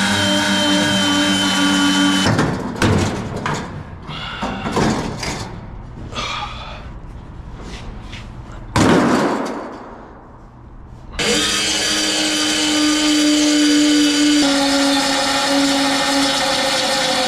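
A high-speed power tool motor running steadily, with a high hiss, until about two seconds in. Then come scattered knocks and short bursts, then a loud burst near the middle that winds down and fades. The motor runs steadily again from about eleven seconds on.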